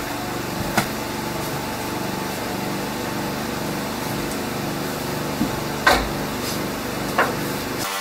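Steady mechanical hum with a low repeating pulse, broken by four short, sharp knocks.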